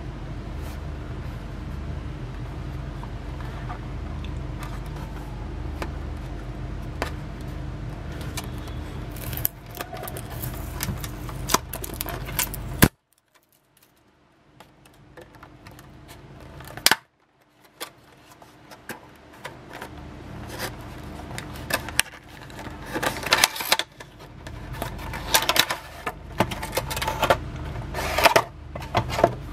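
Cardboard box and clear plastic tray being handled and opened by hand: scattered clicks, crinkles and rustles that grow busier in the second half, over a steady low background rumble. The sound cuts out twice near the middle.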